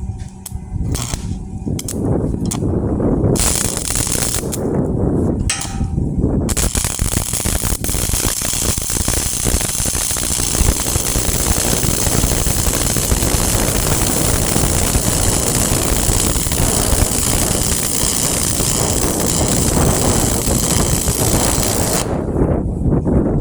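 Arc welding: the arc strikes and breaks off several times in short bursts during the first six seconds, then runs continuously for about fifteen seconds and stops shortly before the end.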